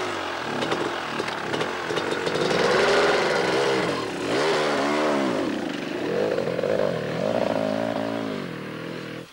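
Two-stroke motocross motorcycle engine revving and pulling away, its pitch rising and falling several times as the rider works the throttle and shifts.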